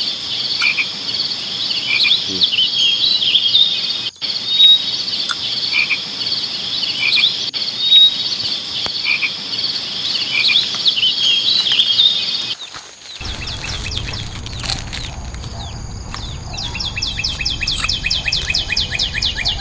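Forest insects droning steadily, with birds chirping over them. After about twelve seconds this gives way to wind rumbling on the microphone and then a fast, even pulsing call.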